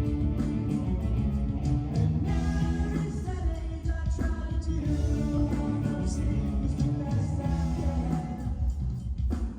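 A rock band playing a song with a singer over a heavy bass line, played through the PA during a sound check.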